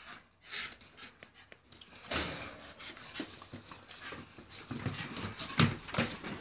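Two Staffordshire bull terriers play-fighting: quick panting and scuffling, beginning about two seconds in.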